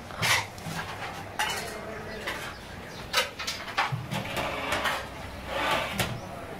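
Metal skimmer and tongs scraping and clinking against a large metal cooking pot as rice and a chunk of meat are scooped out, in a handful of short, separate strokes.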